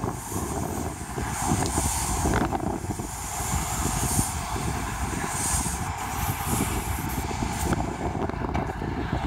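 Paint sprayer running: a steady mechanical drone under a hiss that surges every second or two.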